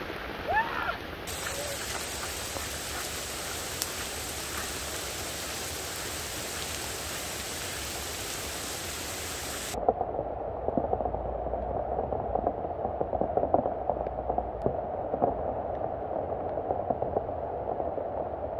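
Heavy rain pouring steadily. A brief vocal sound comes in the first second. About halfway through, the sound changes abruptly to a duller, muffled patter of many raindrops.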